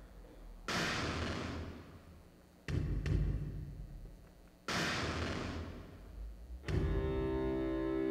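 Dance music track: a deep percussive hit with a hissing wash that fades out, repeated every two seconds, four times, then sustained pitched notes come in near the end.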